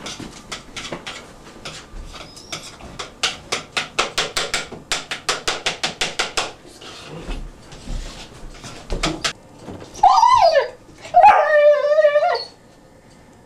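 Newfoundland puppy howling: a short call that bends up and down about ten seconds in, then a longer wavering howl. Before it comes a quick run of light clicks for the first several seconds.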